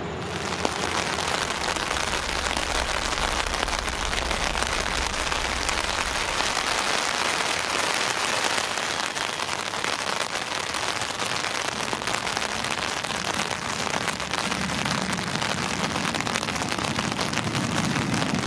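Heavy monsoon rain falling steadily, a dense, even hiss of rain on grass and ground. A low rumble rises under it in the last few seconds.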